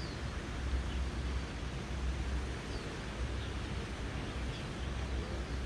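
Steady outdoor background noise: a low rumble with an even hiss, and a few faint bird chirps.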